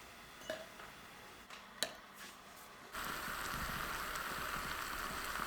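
A couple of faint clicks in a quiet room, then about three seconds in a steady hiss starts abruptly: water boiling on a stove.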